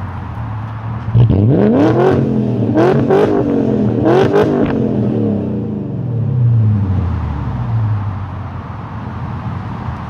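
BMW E39 540i's V8 with a straight-piped exhaust idling, then revved hard several times in quick succession from about a second in, each rev rising sharply in pitch. The revs fall back to a steady idle over the following few seconds.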